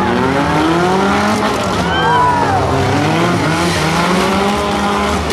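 Several demolition derby cars' engines revving hard at once, their pitches rising and falling as the cars shove against each other, with a brief high squeal about two seconds in.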